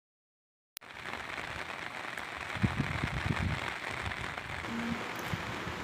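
Steady rushing hiss of water that starts abruptly with a click under a second in, with a few low thumps around the middle.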